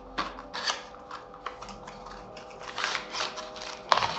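Cardboard box insert and plastic-bagged accessories being handled: scattered light clicks and rustles, with a sharper tap about four seconds in.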